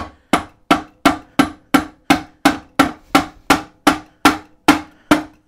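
Hammer tapping rhythmically on a Reliant gearbox bell housing, about three blows a second, each with a short metallic ring. The blows are meant to work the gearbox free where it is stuck on the input shaft.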